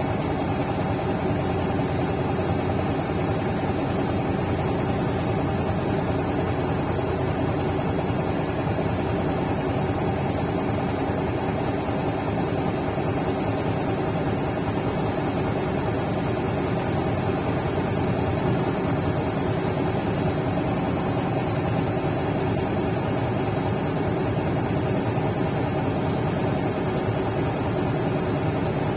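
Shacman tractor head's diesel engine idling steadily, heard from inside the cab.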